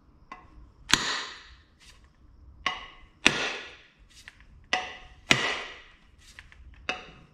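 A Gränsfors Bruks splitting maul striking the bottom of a wooden axe handle, three heavy blows about two seconds apart, each ringing briefly and fading, with lighter knocks before the second and third and near the end. Each blow drives the 5-pound axe head further down onto the handle to seat it before wedging.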